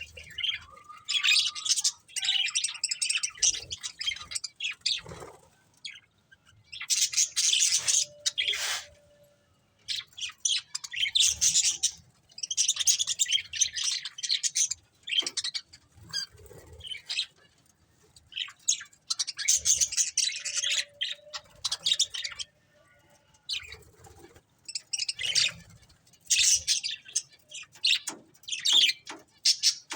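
Pet budgerigars chirping and chattering in rapid, high-pitched warbling bouts of one to three seconds, with short pauses between them.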